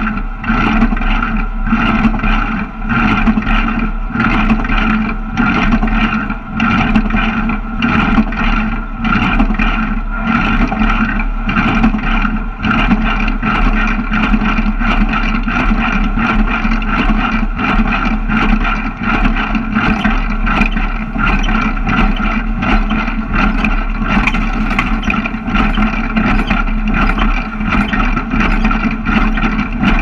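Hesston 4590 small square baler running under load, its mechanism clattering in a steady, regular rhythm over a constant mechanical drone.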